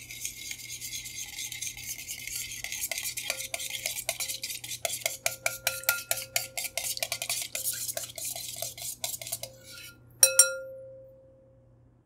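A wire whisk beating a thin liquid in a glass bowl: steady swishing with a fast run of clinks as the wires hit the glass. About ten seconds in, one loud clink against the glass bowl leaves it ringing for a moment.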